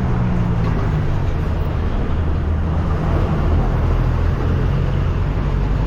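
A motor engine running steadily and loudly, its low hum shifting slightly in pitch.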